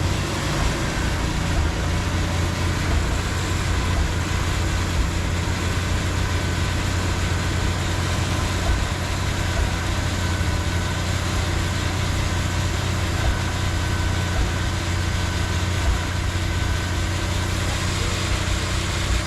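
Jeep engine idling steadily while its Smittybilt 10,000 lb electric winch hauls in cable under load to lift a fallen tree, the winch motor giving a faint high whine in stretches from a few seconds in until near the end.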